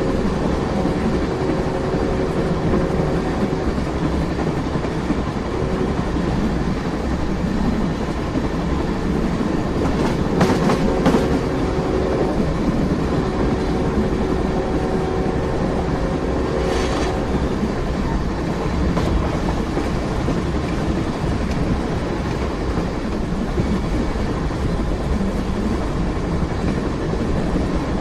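Train running steadily: a continuous rumble of wheels on rails with a steady hum in it, and a few sharp clacks about ten seconds in and again near seventeen seconds.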